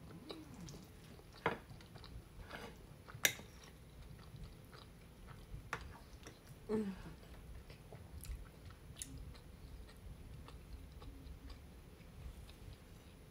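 Close-up eating sounds: a mouthful of lasagna being chewed, with a few sharp clinks of a metal fork against a glass baking dish, the loudest two about 1.5 and 3 seconds in. A brief falling tone comes about halfway through.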